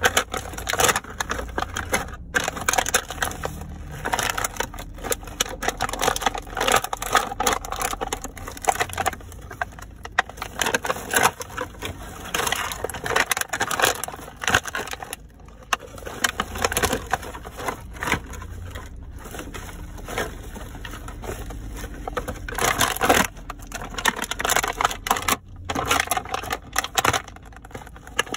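Cardboard and clear plastic packaging of a figure box crunching and crackling under sneakers as it is stamped on and ground underfoot. The crunches come irregularly, with a few brief pauses.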